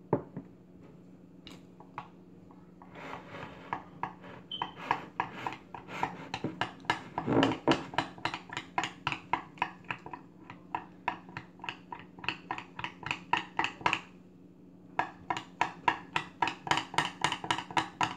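A spoon stirring a drink in a tall glass, clinking against the glass in quick, regular strokes several times a second, with a brief pause near the end.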